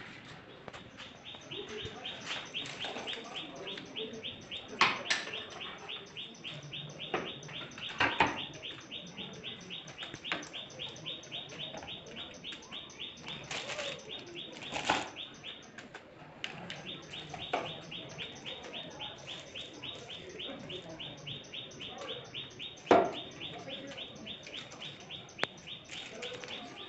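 Steady, rapid high-pitched chirping, about five pulses a second, with a few sharp knocks and clatters scattered through it; the loudest knock comes about 23 seconds in.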